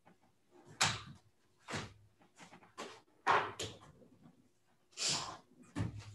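A scatter of about eight irregular knocks, clatters and brief rustles, like objects being handled and set down, in a small room over a faint steady hum; the loudest knocks come about a second in and just past three seconds.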